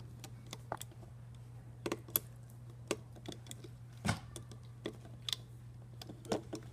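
Irregular light clicks and taps from a loom hook and fingers working rubber bands over the pegs of a plastic Rainbow Loom. The clicks are uneven, with a louder one about four seconds in, over a steady low hum.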